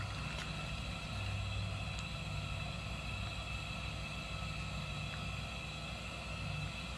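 Steady low engine-like hum with a few faint ticks.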